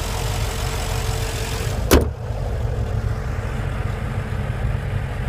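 Porsche Panamera GTS's 4.8-litre V8 idling under the open bonnet, then the bonnet slammed shut about two seconds in with one sharp bang. After the slam the engine goes on idling but sounds duller, muffled by the closed bonnet.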